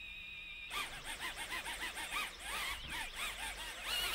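Tiny whoop micro drone's motors whining. The pitch holds steady for the first moment, then the motors are spun up and down in quick blips, several rising-and-falling whines a second, while the drone sits on the carpet.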